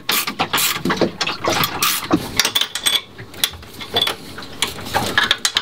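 Metal tools and hardware clicking and clanking as bolts are worked loose on a Lewmar autopilot drive: a rapid, irregular run of sharp clicks and knocks.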